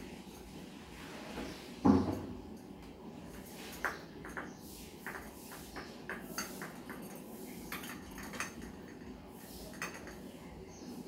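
Handling noise from a hanging ceiling lamp being fitted to its ceiling mount: one knock about two seconds in, then a scattered run of light clicks and clinks as the wires are worked up through the mount.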